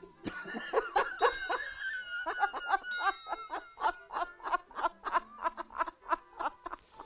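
A man laughing hard after a pun: a long fit of rapid, high-pitched 'ha-ha-ha' laughter, several bursts a second, trailing into breathy gasps.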